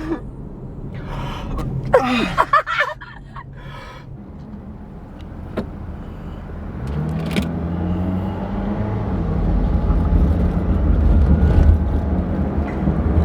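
Car engine and road noise inside the cabin. About seven seconds in, the engine note rises as the car speeds up, and it stays louder after that. Near the start there are a couple of short, sharp gasps from a person with the hiccups.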